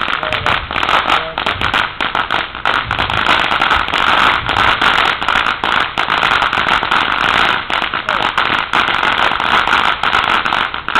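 Fire Gem ground fountain firework spraying sparks: a loud, steady hiss full of dense crackling pops. It starts suddenly and keeps going at full strength.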